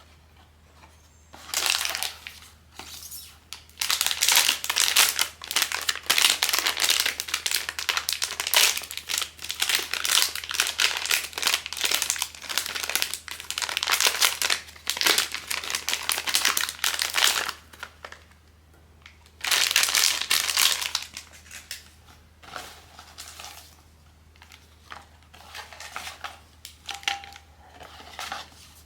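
Blind-box toy packaging being crinkled and crumpled by hand. There is a short rustle, then a long stretch of dense crinkling, a brief pause, another burst, and then a few lighter, scattered rustles toward the end.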